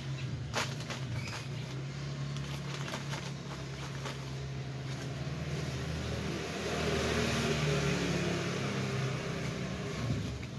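A steady low motor hum runs throughout, with plastic rustling and crinkling louder from about six seconds in as hands work in a plastic bag.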